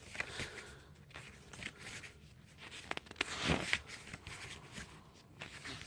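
Soft rustling and small clicks of a paperback book being handled and its pages turned, with a louder rustle about three and a half seconds in.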